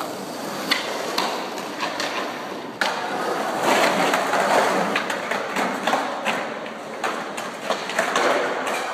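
Skateboard wheels rolling on rough concrete and trucks grinding a concrete ledge, with repeated sharp clacks of boards and trucks hitting the concrete and a hard knock about three seconds in.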